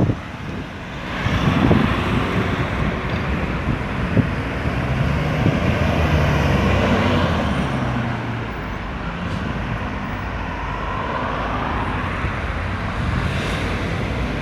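Road traffic: cars and trucks driving past, a steady rumble of engines and tyres that swells as vehicles go by.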